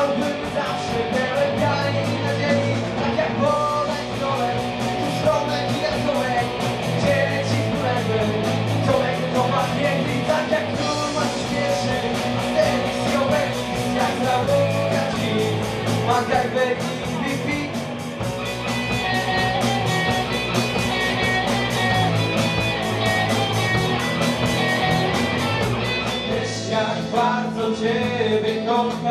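A young rock band playing live: electric guitars, a bass guitar and a drum kit, with a sung vocal line. Near the end the music changes abruptly to a different song.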